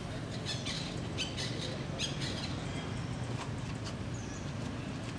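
Small birds chirping: a quick run of short, high chirps in the first couple of seconds, then two brief dipping chirps near the end, over steady low background noise.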